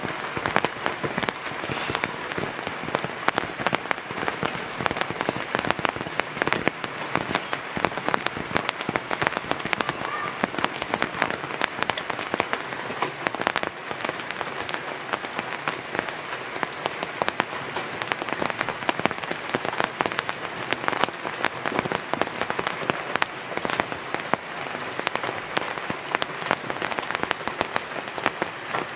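Heavy rain falling steadily, a dense patter of countless drops with no let-up.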